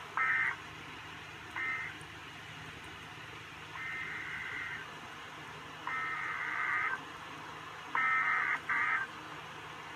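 A string of short electronic multi-tone beeps like telephone touch tones, at irregular spacing: a brief one at the start, another about a second and a half later, then two longer ones of about a second each, and a quick pair near the end, over a steady low hiss and hum.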